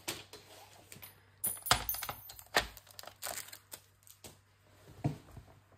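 Scattered knocks and light clatter of a paper trimmer being handled and set down on a cutting mat, with the loudest thump a little under two seconds in.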